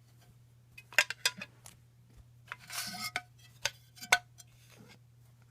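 Light clicks and taps of trading cards and their holders being handled, about half a dozen sharp ticks with a short sliding rustle about three seconds in, over a faint steady hum.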